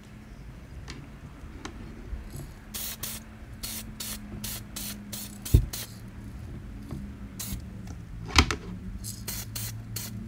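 DuraCoat aerosol spray can hissing in a series of short bursts, laying down a light first coat of paint. Two sharp knocks, about five and a half and eight and a half seconds in, stand out above the hiss, with a steady low hum underneath.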